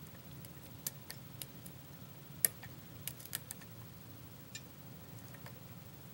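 Small sharp metallic clicks of a lock pick and tension wrench working the pins of a pin-tumbler challenge lock under light tension. About a dozen come at irregular intervals, the sharpest about two and a half seconds in and a quick cluster soon after.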